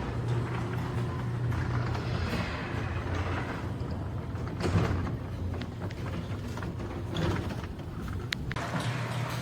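Electric garage door opener running steadily with a low hum as the door travels, with rattling from the door and a few sharp clicks.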